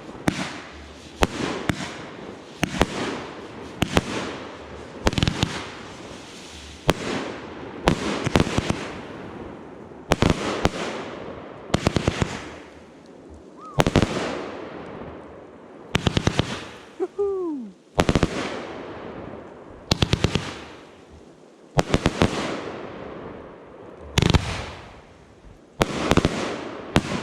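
Fireworks bursting in quick succession: a sharp bang about every second or so, some in tight clusters, each followed by a fading crackle.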